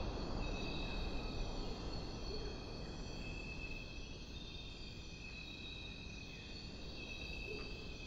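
Steady chorus of insects trilling at several high pitches, over a low, even background noise.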